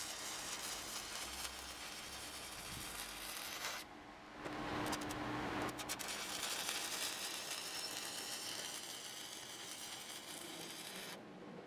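Stick (arc) welding on mild steel: the electrode's arc crackles and sizzles steadily, breaks off briefly about four seconds in, is struck again, and stops once more near the end.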